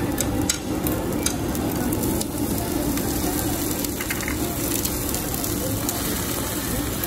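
Raw pork belly slices sizzling on a hot stone griddle plate, with scattered crackles and pops.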